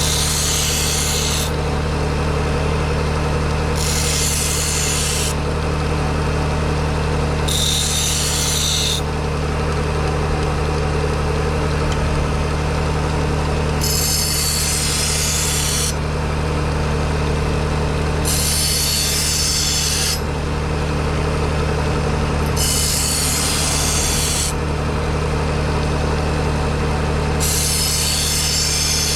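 Bucktool 1x30 low-speed belt sander running steadily with a motor hum, while a steel blade is drawn across the moving belt in seven separate passes. Each pass lasts one to two seconds and makes a gritty, high grinding hiss.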